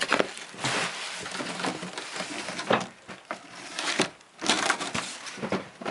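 Cardboard and packing material rustling and crunching irregularly as a shipping box is unpacked by hand, with a few louder crunches.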